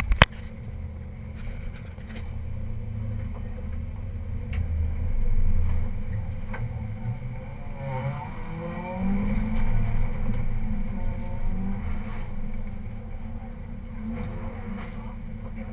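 Rally car's engine idling in the cabin, swelling up in revs a couple of times, first around five seconds in and again around nine to ten seconds, before settling back. A sharp knock right at the start.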